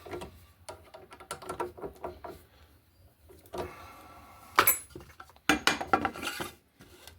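Scattered clicks and knocks of hard objects being handled and set down on a workbench. The sharpest knock comes a little past halfway, followed by a quick cluster of clatter near the end.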